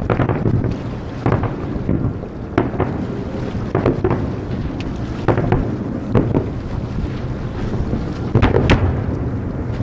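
Aerial firework shells bursting in a series of booms, roughly one a second with two close together near the end, over a constant low rumble.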